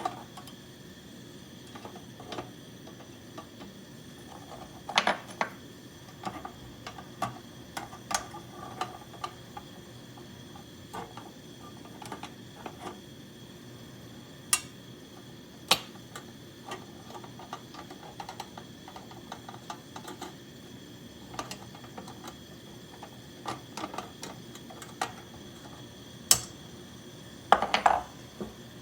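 Irregular sharp metallic clicks and taps, a few a second at most and often seconds apart, over a steady faint hiss. They come from an aluminum flange being preheated on a camp stove for low-temperature brazing, not yet hot enough for the rod to melt.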